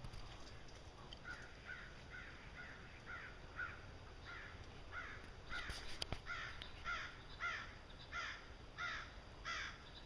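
An animal calling over and over: a steady string of short calls, about one every half second, which grow louder about halfway through.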